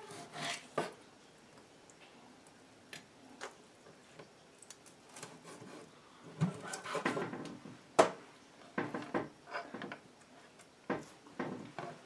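Kitchen knife slicing through a fish and knocking against a wooden cutting board while filleting: scattered soft scrapes and short knocks, with the sharpest knock about eight seconds in.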